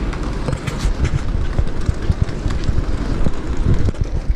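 Busy city street ambience: steady traffic noise with a low rumble and scattered short knocks.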